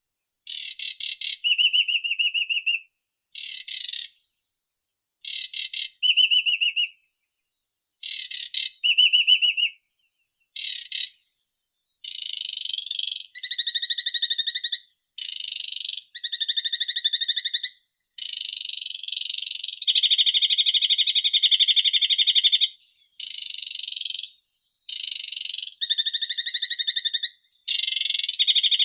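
A songbird singing in short, harsh, trilling phrases of about a second each, split by brief pauses. From about halfway through, the phrases run together into longer, more continuous song.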